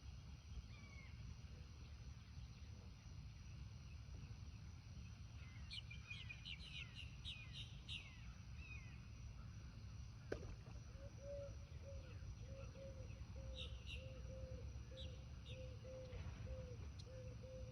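Faint lakeside ambience over a steady low rumble. A bird calls a quick run of descending chirps, and a few more chirps follow later. About ten seconds in there is a single sharp click, after which a low short note starts repeating about one and a half times a second.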